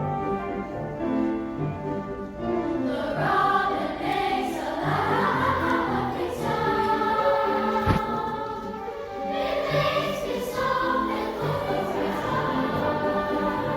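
Choir singing with piano accompaniment; the voices come in about three seconds in over the piano's held chords.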